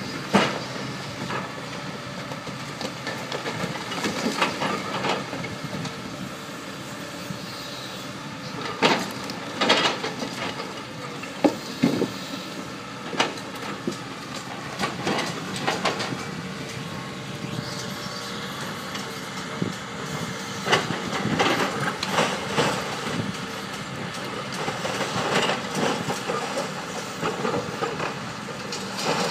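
Caterpillar 320B hydraulic excavator's diesel engine running steadily while its demolition jaws break up a concrete building. Repeated sharp cracks and crashes of concrete and steel breaking and rubble falling come every few seconds.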